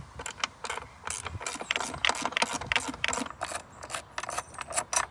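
Ratcheting 10 mm socket wrench clicking in quick runs of sharp ticks as the nut on the battery hold-down bracket is backed off.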